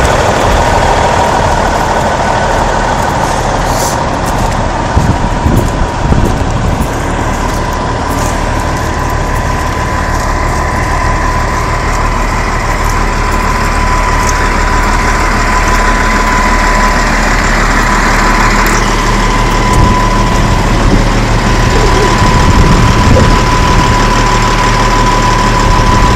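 Heavy diesel truck engine idling steadily, with a constant thin whine over it.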